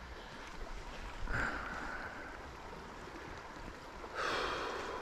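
River water flowing steadily, with two brief swells of louder rushing noise, one about a second in and a stronger one near the end.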